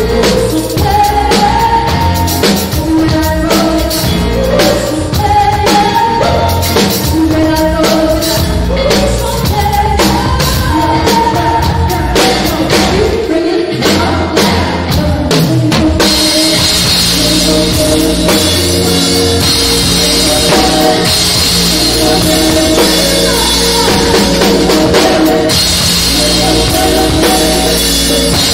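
Live band playing an upbeat funk-pop song, with a full drum kit driving the beat under sung vocals. About halfway through, the sound turns brighter and denser in the high end.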